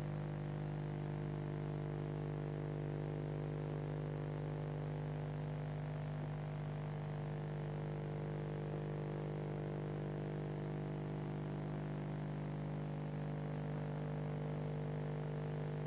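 A steady low hum with buzzy overtones, unchanging in pitch and level.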